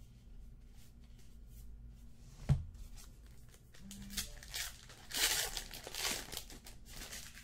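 A single thump about two and a half seconds in, then a 2017 Topps Archives baseball card pack's wrapper being torn open and crinkled in the second half.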